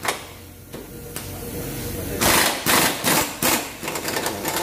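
Pneumatic impact wrench hammering on a lower control arm bolt in short bursts: three loud ones starting about two seconds in, with smaller rattles after.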